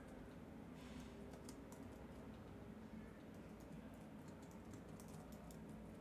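Faint typing on a computer keyboard: quick, irregular keystrokes in short runs.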